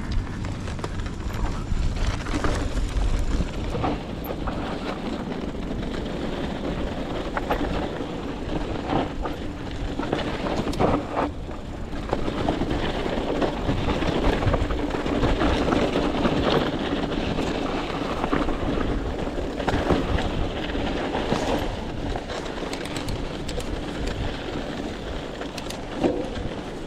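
Mountain bike being ridden over a dirt trail: tyres rumbling on the ground and the bike rattling and clicking over bumps, with wind rumbling on the microphone.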